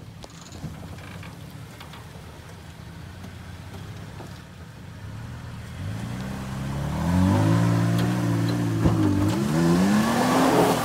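Toyota Tacoma pickup's engine working up a steep dirt hill climb: a low, steady run at first, then revving hard from about six seconds in, its pitch rising and falling as the driver works the throttle. Near the end the tires spin and spray dirt.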